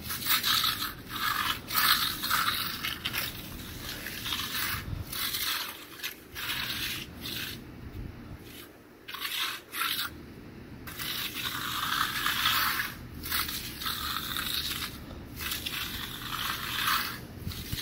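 Steel hand trowel scraping across the wet surface of a fresh concrete slab in repeated sweeping strokes, with short pauses between strokes, as the slab is hand-finished.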